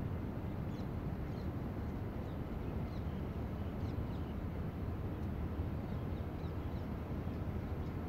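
Steady low outdoor background noise with faint short bird chirps scattered through it.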